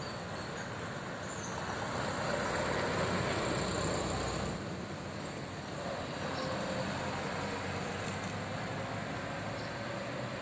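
Buses running through a terminal yard: a steady engine and road noise that swells over the first few seconds, then changes abruptly about four and a half seconds in to a slightly quieter engine sound as a bus pulls away.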